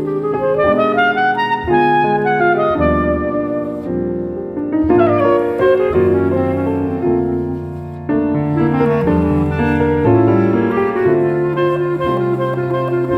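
A clarinet plays a flowing melody over piano accompaniment.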